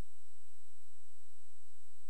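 Steady hiss with a thin, high-pitched whine and no distinct sound event.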